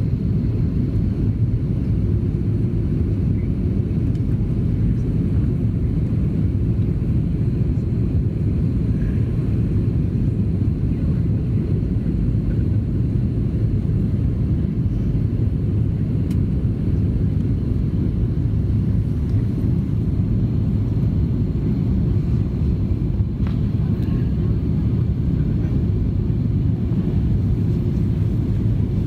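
Steady low rumble of an Airbus A330-300 airliner in flight, engine and airflow noise heard inside the passenger cabin, even in level throughout.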